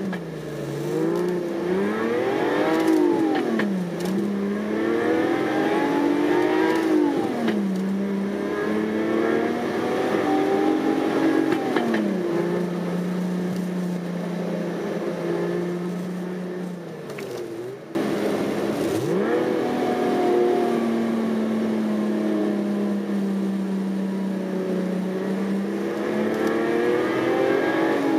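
SoundRacer V12 engine-sound generator playing a Ferrari 512 BB LM-style carbureted V12 through the car stereo inside the cabin, its pitch following the Daihatsu Move turbo's revs. The note rises through the gears and drops back at each upshift several times, then holds a steady pitch while cruising.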